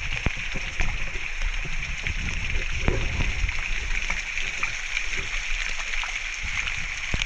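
Water splashing and sloshing as people swim in a rock pool, with scattered small splashes over a steady high hiss.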